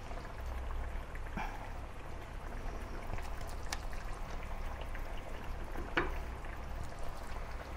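Curry gravy simmering gently in a nonstick wok over a low steady hum, with a few soft clicks and knocks as onion-yogurt paste is spooned into the pan.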